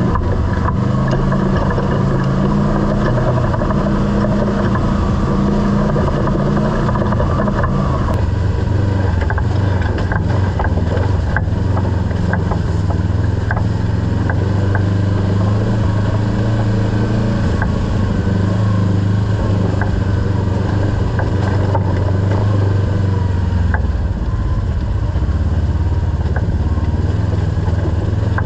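Kawasaki KRX side-by-side's engine running steadily under way on a trail, its note dropping and settling about eight seconds in, with scattered small clicks over it.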